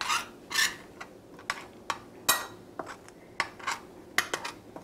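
A metal spoon stirring flour on a plate: irregular scrapes and light clinks of the spoon against the plate, about a dozen in a few seconds.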